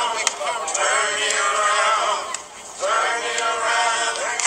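Singing with long held notes, in two phrases with a short break just past halfway.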